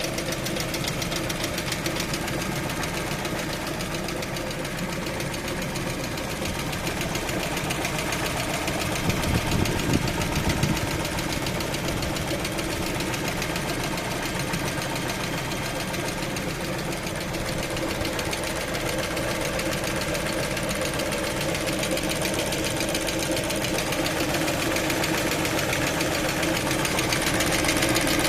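Lada Vesta engine running while warming up, with a fast, even knock throughout, briefly louder about ten seconds in.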